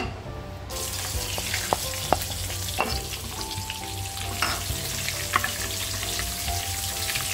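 Butter dropped into hot frying oil in a wok starts sizzling suddenly about a second in and keeps sizzling as it melts. A wooden spoon pushes it around, with a few sharp clicks against the pan.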